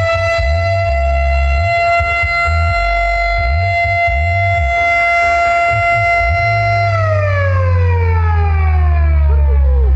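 A siren tone holding one steady pitch, then sliding down in pitch over the last three seconds, over heavy thudding bass.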